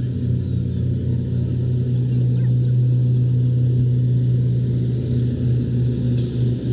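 A large engine running steadily at an even speed, a low drone that holds its pitch, with a brief hiss near the end.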